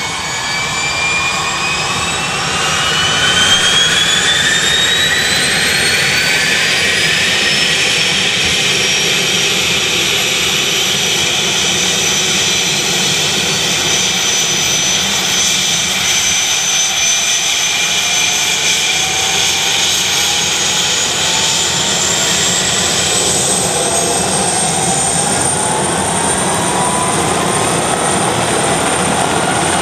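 Rescue helicopter's turbine engines running up on the ground as the main rotor spins up for take-off: a loud, steady rush with a high whine that climbs in pitch over the first several seconds, holds, then climbs again about two-thirds of the way through as the rotor comes up to speed.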